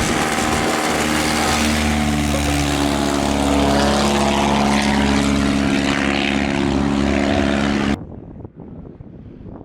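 Light propeller aircraft engine running at high power, close by. Its pitch drops slightly about two seconds in, and it stops abruptly about eight seconds in, leaving light wind noise on the microphone.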